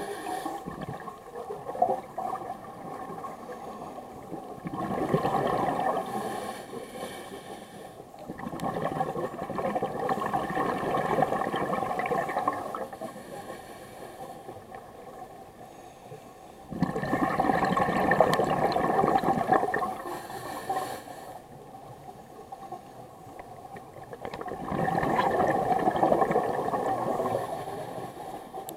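A scuba diver's exhaled air bubbling out of the regulator, heard underwater, in four rushes of a few seconds each about every eight seconds, with a quieter steady wash of water between them.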